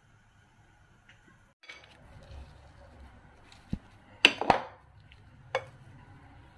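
Metal potato masher mashing boiled potato in a ceramic bowl, knocking against the bowl: a few sharp clinks, the loudest a pair about two-thirds of the way through, over a faint low hum.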